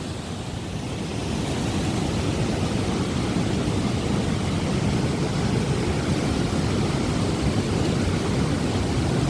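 Steady rushing of a waterfall, a deep even roar that grows a little louder over the first couple of seconds and then holds.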